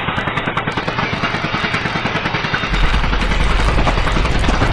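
Power drill boring into a stone statue, running continuously with a fast, rapid pulsing, and a deeper rumble joining in a little over halfway through.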